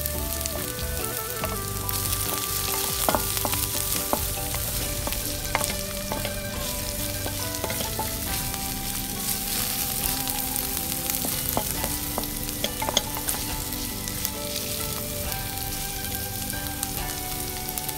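Chopped red onion and garlic sizzling in hot oil in a wok, stirred with a wooden spatula that clicks and scrapes against the pan now and then.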